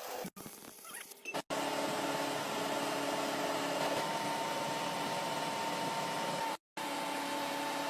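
Stick-welding arc, a steady crackling hiss with a steady hum underneath. It is broken by short silent cuts near the start and again about two-thirds of the way through.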